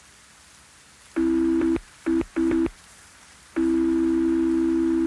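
Over a faint steady hiss, a steady buzzy electronic tone switches on and off: one burst about a second in, two short ones around two seconds, then a long one from about three and a half seconds.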